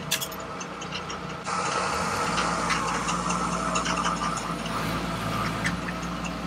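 Steady hum of the small electric motors of RC construction models, with scattered small clicks of soil and pebbles rattling against the model screening plant. About a second and a half in, the noise turns suddenly louder.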